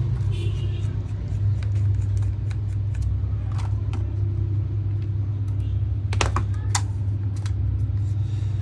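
Small screwdriver clicks and taps as screws are backed out of a handheld POS terminal's casing, scattered through the stretch and clustered near the end, over a steady low hum.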